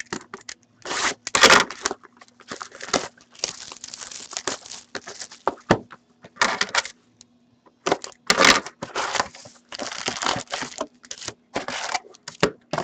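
A cardboard box of hockey cards being torn open and its foil-wrapped card packs crinkling as they are handled and pulled out, in a run of short, irregular tearing and rustling bursts.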